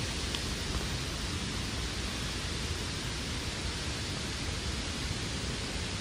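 Steady rush of falling water from Tad Yeuang waterfall, an even, unbroken noise with a strong low rumble.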